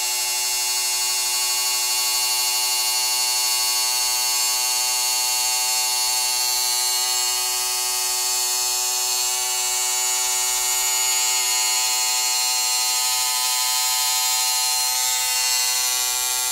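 The small electric motor and gearbox of a Walthers model bascule bridge, fed 5 volts, running steadily as it raises the span. It makes a constant whine that holds one pitch without rising or falling, the sign of a free-moving drive rod with no tight spots loading the motor.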